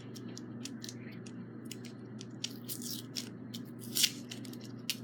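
Hands working at a small taped-up plastic lip-balm-style container: a run of small irregular clicks and taps, with a louder click about four seconds in, over a steady low hum.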